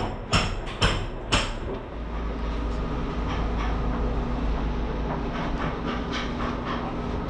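Three sharp knocks about half a second apart as granite counter edge pieces are handled and set in place, followed by a steady low rumble.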